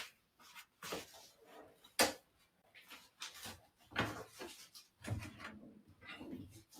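Scattered faint clicks and knocks of small handling noises, the sharpest about two seconds in and another about four seconds in, with a few soft low thuds near the end.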